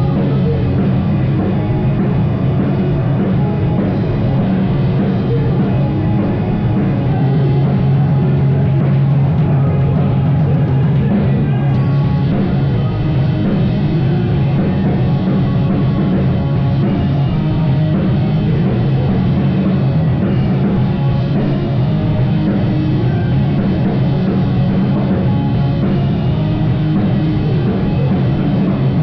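Live rock band playing, recorded live: drum kit and amplified instruments, loud and steady with no break.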